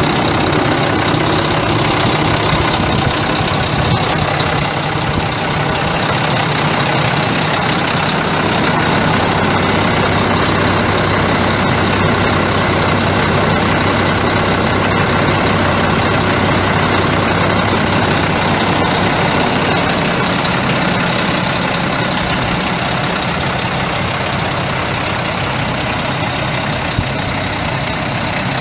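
Mack EM7 12.0 L inline-six turbo diesel engine of a 1999 Mack DM690S truck idling steadily.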